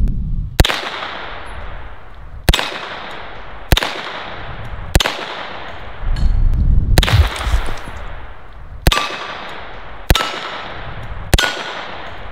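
Eight slow, deliberate single shots from a 9mm HK SP5 short-barreled rifle, spaced about one to two seconds apart, each with an echoing tail. Some shots are followed by the brief ring of a steel silhouette target being hit.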